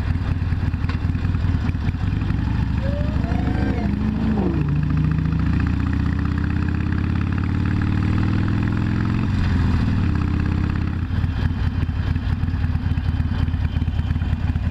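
Harley-Davidson Sportster V-twin engine running under way. Its pitch climbs slowly for a few seconds, then drops and picks up again near the two-thirds mark, as with a gear change.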